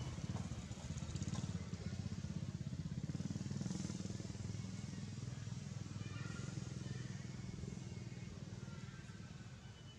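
Motor engine running with a low, fast-pulsing hum, fading away over the last few seconds.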